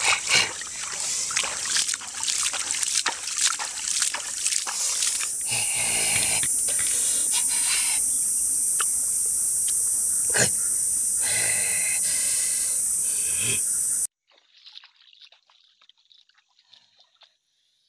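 Hands splashing and scooping in shallow river water and wet sand, in many short splashes. Then a steady high-pitched hiss takes over and cuts off abruptly a few seconds before the end, leaving near silence.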